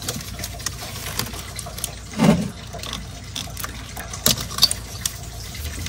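A gloved hand working ignition coil packs loose in a Toyota Tundra engine bay: scattered sharp plastic clicks and knocks, a duller thump about two seconds in, and two more clicks a little after four seconds, over a steady hiss.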